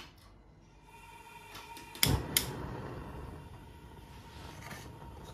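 Gas stove burner being lit: two sharp clicks about two seconds in, then the steady low rush of the burner flame.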